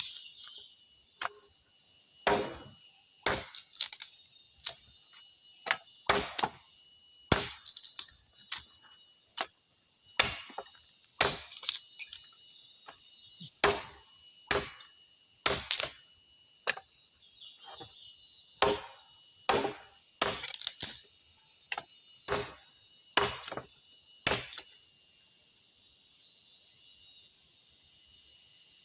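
Wood being chopped with a blade: about thirty sharp strikes, roughly one a second and irregular, that stop about three-quarters of the way through.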